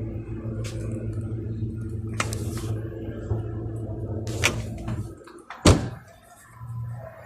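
Side-by-side refrigerator running with a steady low hum, with a few sharp clicks; the hum cuts off about five seconds in, followed by one loud knock.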